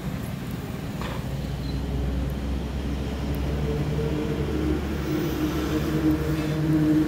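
An engine running steadily, a low hum with a pitched drone that strengthens about three seconds in and edges up in pitch near the end.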